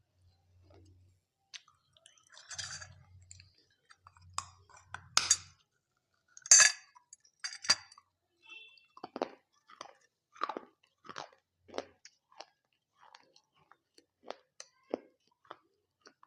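Close-miked eating of dahi papdi chaat: a few loud, crisp crunches as the fried papdi wafers are bitten, then steady chewing with about one to two short, wet mouth sounds a second.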